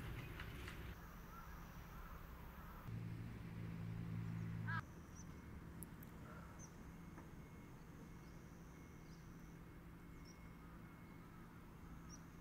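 Faint outdoor ambience: a steady low hum, with a louder low drone for about two seconds near the middle, and scattered short bird calls, one clearer rising call about halfway through.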